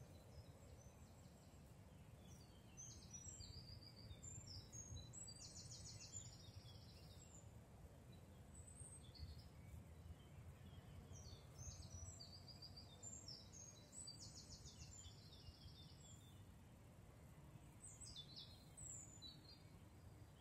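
Faint songbird song: two long, high phrases of rapid trills and a shorter phrase near the end, over a steady low rumble.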